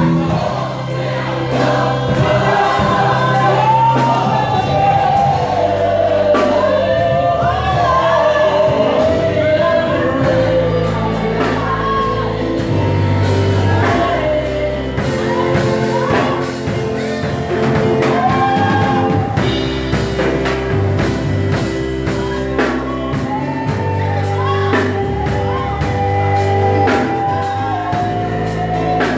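Gospel song: a voice sings a winding melody over a band, with held bass notes and a steady drum beat.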